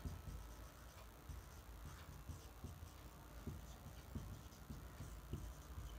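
Faint taps and scrapes of a marker writing on a whiteboard, coming in short, irregular strokes.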